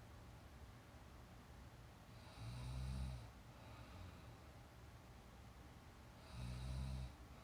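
A person snoring: two snores about four seconds apart, each lasting under a second, over a faint steady hiss.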